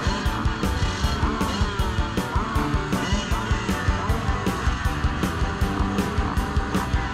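Background music with a fast, steady beat of about four beats a second. Dirt-bike engines revving at the starting gate sit underneath it.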